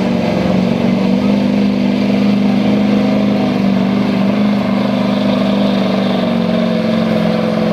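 Chevrolet Silverado's Duramax V8 diesel running flat out under full load, pulling a weight-transfer sled. It gives a loud, steady drone that holds nearly the same pitch throughout.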